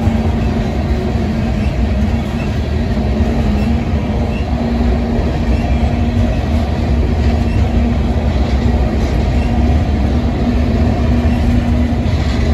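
Paducah and Louisville Railroad freight cars rolling past at speed: a steady, loud rumble and clatter of steel wheels on the rails, with a faint hum that comes and goes.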